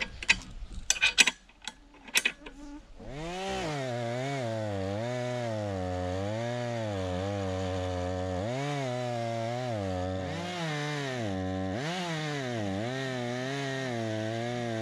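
A few light clicks and knocks. About three seconds in, a chainsaw mounted on a mini chainsaw mill starts running hard, ripping lengthwise through a spruce log, its pitch wavering up and down as it works through the cut.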